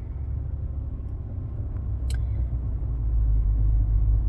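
Low, steady road and engine rumble heard from inside a moving car's cabin, growing a little louder toward the end, with one short click about two seconds in.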